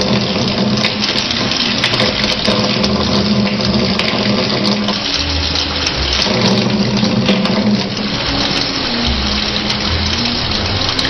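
Water running from a tap into a sink in a steady stream, with background music with low held notes.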